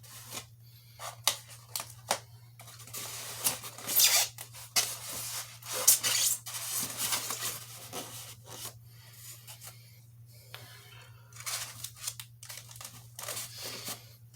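Cardboard and plastic packaging being handled: irregular rustling, scraping and tearing noises with sharp clicks and taps, over a steady low hum.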